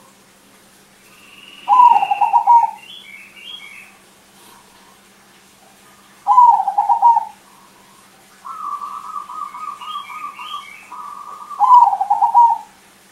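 Caged crossbred perkutut (zebra dove) singing: three loud rolling coo phrases, each under a second and about five seconds apart. A softer, longer trilling coo runs for a couple of seconds before the third phrase, with faint high chirps in the background.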